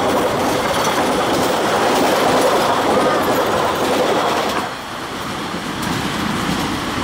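Local passenger train coaches rolling past close by, their wheels running on the rails in a steady, loud rumble. The noise drops suddenly about two-thirds of the way through, as the train draws away.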